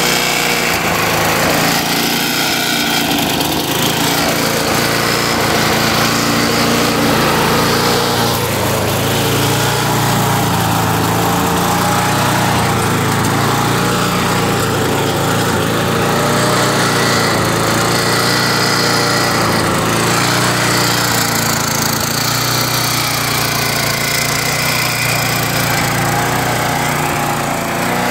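A Tecumseh 92cc single-cylinder lawn mower engine running continuously, its speed rising and falling every few seconds: the engine is surging.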